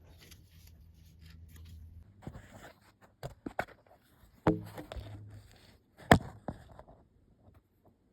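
Scattered clicks and knocks of hand work with tools and parts, several short taps in the middle and one sharp knock about six seconds in, over a faint low hum during the first two seconds.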